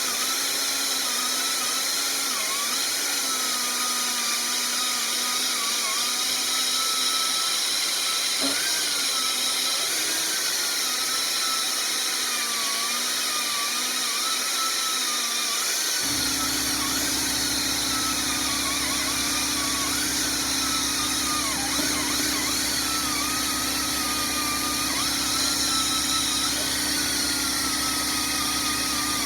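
Pneumatic grinder whining as it strips paint off a machinist's vise, its pitch wavering as the load changes. About halfway through, the air compressor kicks on and adds a steady low hum.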